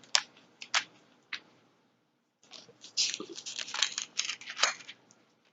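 Pages of a paper Bible being turned while searching for a passage. A few sharp flicks come first, then from about two and a half seconds in a couple of seconds of crackling paper rustle.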